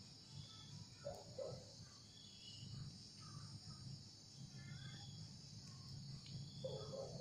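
Faint, steady night chorus of crickets. A short low animal call comes twice, about a second in and again near the end.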